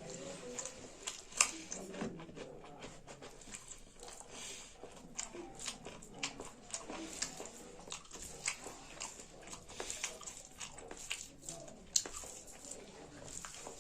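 Close-up eating sounds of a person chewing rice and saag with their mouth open: wet smacking and irregular sharp clicks of lips and tongue. Two clicks are louder, about a second and a half in and near the end.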